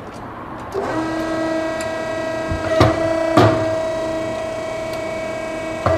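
Bullet-forming press with its die running, pressing a 302-grain hollow-core airgun slug: a steady machine hum starts about a second in, with a few sharp clicks and knocks as the press cycles.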